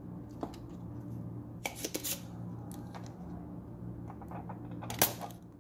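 Desoldering pump held to a circuit-board joint beside a soldering iron, giving one loud sharp snap about five seconds in as its spring plunger fires. Before it come small clicks and knocks of the board and tools being handled, over a steady low hum.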